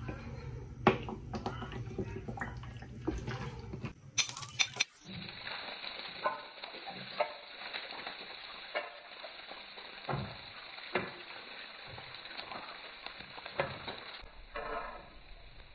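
Metal spoon clinking and scraping in a ceramic-coated frying pan while chopped red onion and garlic are stirred in oil, with a light frying sizzle. About five seconds in, the sound turns duller, recorded in slow motion.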